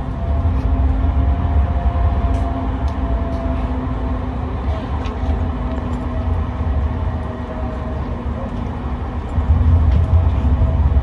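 Tram running along the track: a heavy low rumble with a steady whine from the electric drive and scattered light clicks.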